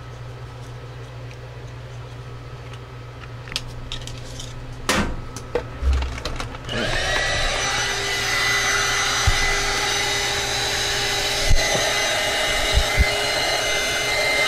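Small handheld heat gun switched on about halfway in and running steadily, a fan whine over a rush of hot air, aimed at heat-shrink tubing on a wire. Before it starts, a few clicks and knocks from tools being picked up.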